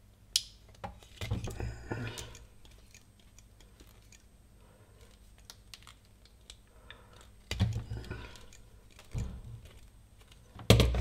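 Small clicks and rattles of wire strippers and thin wires being handled on a bench, with a few dull thuds, about a second in and again near the end.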